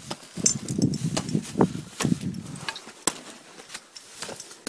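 Climbing hardware clinking and knocking against rock as a roped climber moves over the rocks, many short sharp clicks over a low rumble that dies away about halfway through.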